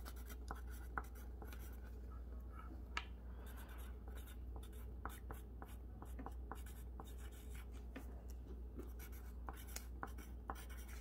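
Pencil writing on a sheet of paper: faint scratching with many short strokes and taps, over a steady low hum.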